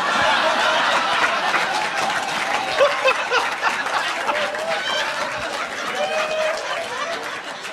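A large audience laughing and applauding, loudest at the start and slowly dying down.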